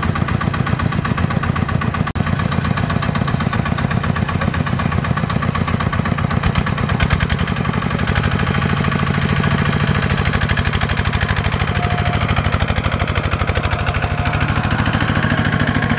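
Kubota RT120 power tiller's single-cylinder diesel engine chugging steadily under load as it pulls a loaded trailer, with a momentary dropout about two seconds in.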